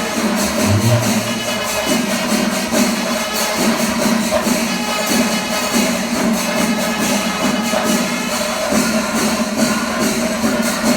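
Music with dense, fast jingling percussion over steady held notes.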